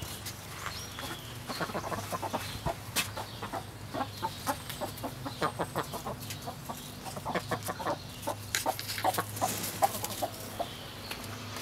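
Several hens clucking, short clucks repeating all through.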